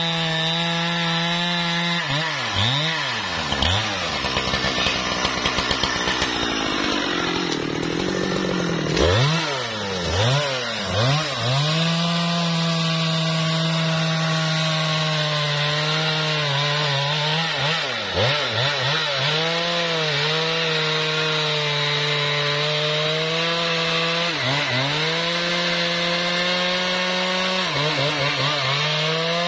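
Husqvarna 395 XP two-stroke chainsaw running at high revs while cutting wood. The engine pitch sags under load as the chain bites, with one long dip in the first third, then many short dips that each recover to full revs.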